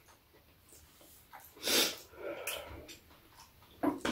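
Eating sounds at a meal: one short, loud breathy rush of air about halfway through, with fainter mouth noises around it and a sharp click near the end.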